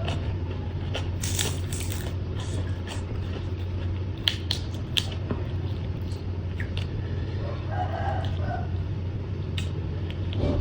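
Sharp crunching bites and chewing of food over a steady low hum. A rooster crows in the distance about eight seconds in.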